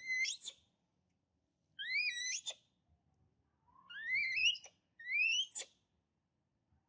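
Baby macaque giving four high, rising calls about one and a half seconds apart, each breaking off sharply: an infant calling for its mother to nurse.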